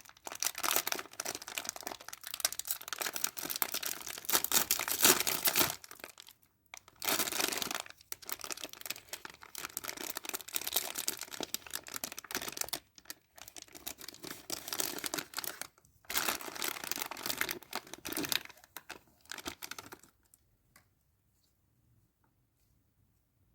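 Packaging being crinkled and torn by hand during an unboxing, in several long spells of dense crackling with short pauses between them; it stops about twenty seconds in.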